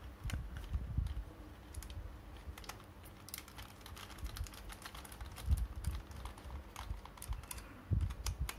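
Small screwdriver turning screws out of a plastic toy robot, with light irregular clicks and ticks from the bit and the plastic parts as they are handled, and a few dull bumps.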